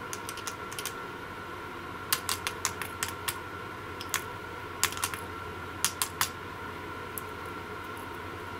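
Short sharp metallic clicks in irregular clusters as a crocodile clip is touched and tapped against a car battery terminal, over a faint steady electrical hum.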